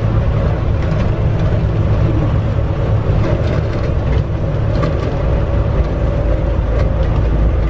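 Inside an elevated train in motion: a steady low running rumble with a faint constant hum above it and a few light clicks.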